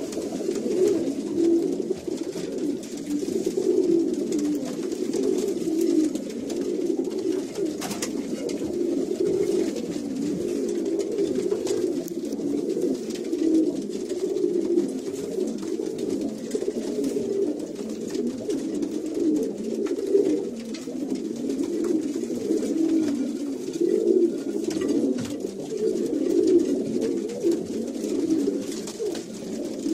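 Many domestic pigeons cooing at once inside a wooden loft, a dense steady chorus of overlapping low coos. This is the cooing of pigeons at pairing time.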